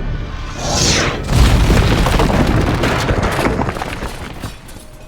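A rushing whoosh, then a deep boom about one and a half seconds in that rumbles and dies away over about three seconds.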